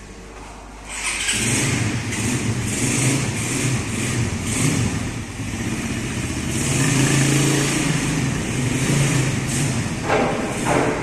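Motor vehicle engine starting up close by about a second in, then running with a wavering pitch as it revs.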